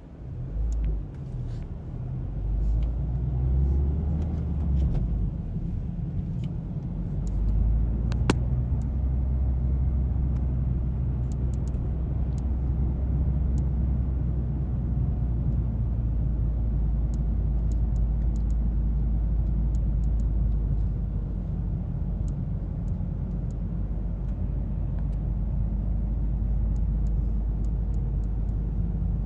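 Mazda 3 driving with a steady low rumble, and irregular short clicks scattered over it, one sharper click about eight seconds in: the clicking noise the owner is trying to track down.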